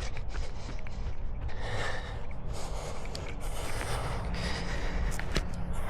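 A runner breathing hard in repeated heavy gusts, with the light click of footfalls in between.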